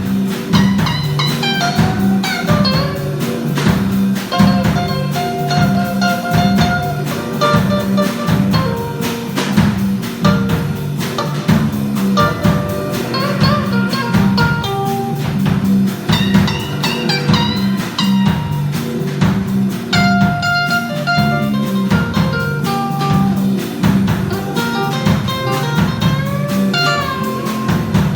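Instrumental music in a blues-jazz style: a guitar playing melodic lines over a bass line and drum kit with a steady beat.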